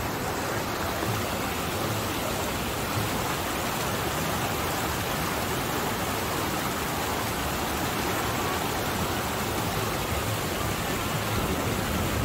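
Steady rush of water from a waterfall and rapids, an even, unbroken noise.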